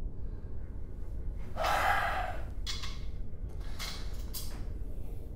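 A person breathing heavily: one long, gasping breath about a second and a half in, then three shorter breaths, over a steady low background hum.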